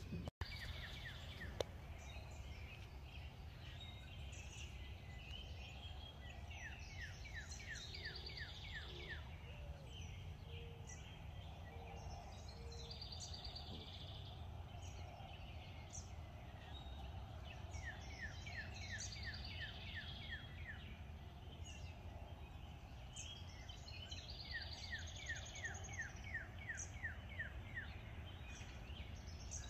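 Songbirds singing, with a few phrases of quick repeated descending notes spaced several seconds apart, over a steady low outdoor rumble.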